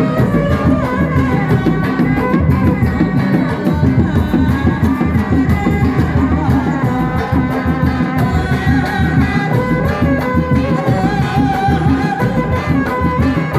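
Kuda lumping troupe's accompanying music: a fast, dense drum rhythm with a wavering melody line above it, played continuously.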